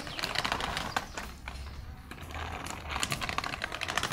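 Hard plastic wheels of a child's pink trolley backpack rattling over paving as it is pulled along, a dense run of rapid clicks that eases off for a moment in the middle.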